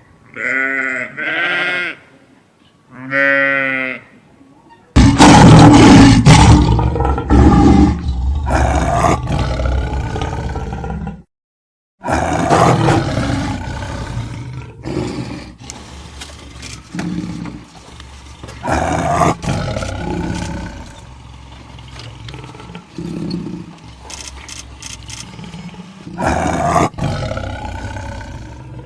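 A few short sheep bleats, then from about five seconds in a big cat's loud, rough roars and growls in repeated bouts, broken by a short silent cut a few seconds later.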